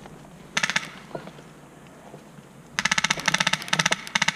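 Electric airsoft gun, an ASG Scorpion EVO 3 A1, firing full-auto: a short burst about half a second in, then a longer rapid burst of about a second and a half near the end.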